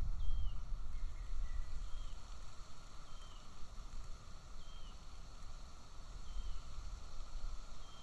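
Wind buffeting the nest camera's microphone in a low, uneven rumble, with a bird's short high call repeated about every second and a half and two fainter lower notes about a second in.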